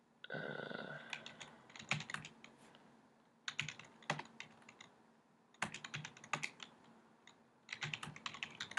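Computer keyboard typing in four short bursts of keystrokes about two seconds apart, as short terminal commands are keyed in. A brief pitched sound comes just after the start, before the first burst.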